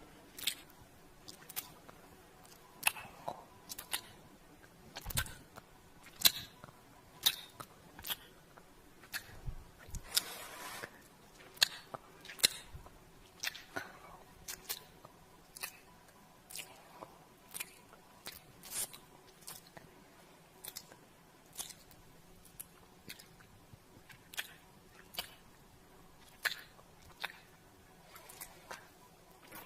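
Kissing sounds made with the lips: a long string of short, wet lip smacks, irregular, about one or two a second, with one longer smacking kiss about ten seconds in.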